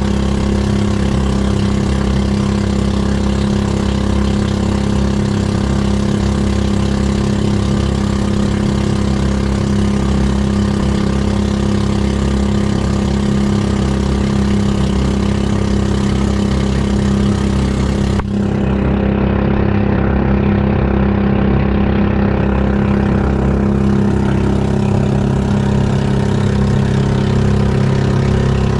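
Outrigger boat's engine running steadily under way, a constant drone. About two-thirds of the way through, the higher hiss drops away abruptly while the engine drone carries on.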